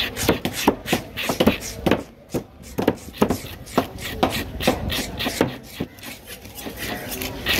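Large steel knife cutting and scraping through a cobia loin against a wooden cutting board: a quick, irregular series of sharp strokes and scrapes.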